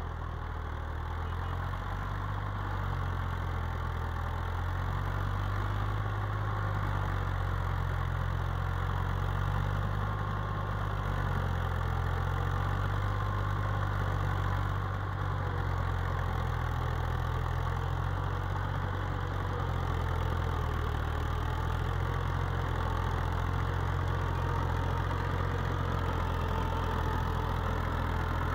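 Old Fiat tractor's diesel engine running steadily under load, pulling a tine cultivator through cloddy ploughed soil.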